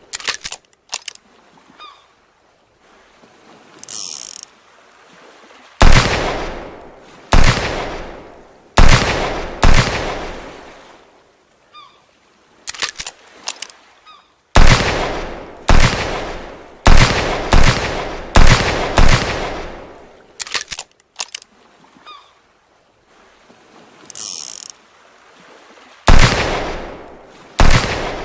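Handmade revolver sound effect: runs of gunshots about a second apart, each with a long echoing tail. Between the runs come small mechanical clicks like a hammer being cocked and a cylinder turning, and a brief high hiss.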